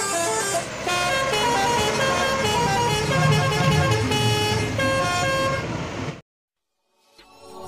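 Odong-odong mini tourist bus driving past, playing a tinny electronic melody of short stepped notes over the low sound of its engine. The tune cuts off abruptly about six seconds in, and after a short silence a new electronic sound starts near the end.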